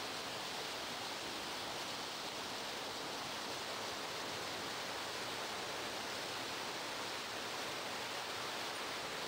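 Steady rushing noise at the stern of a moving lake boat: the churning propeller wake and air rushing past, with no clear engine note or distinct events.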